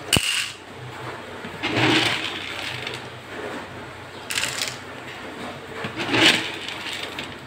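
Dry dog kibble poured into a plastic scoop on a kitchen scale, the pellets rattling in about three short bursts, after a sharp click at the very start.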